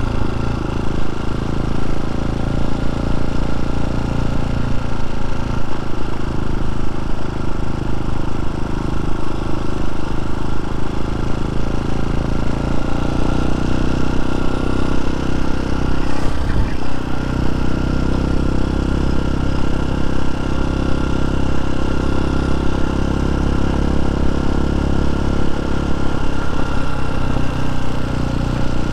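TaoTao TBR7 dirt bike's single-cylinder engine running under way, easing off a few seconds in, picking up again about halfway through and easing off near the end. A single short knock partway through.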